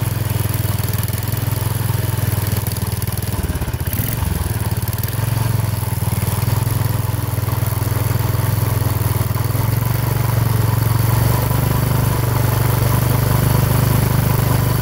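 The 16 hp Tecumseh OH160 single-cylinder engine of a 1970 Sears Suburban lawn tractor running steadily while its carburetor linkage is set by hand to get the running speed right. Its note wavers briefly about four seconds in, then settles into an even run.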